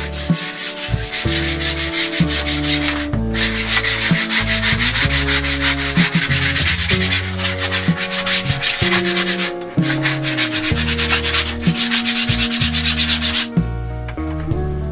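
Fast, rhythmic scraping or rubbing by hand, with short pauses about 3 and 10 seconds in, stopping a little before the end. Background music with a melody of held notes plays throughout.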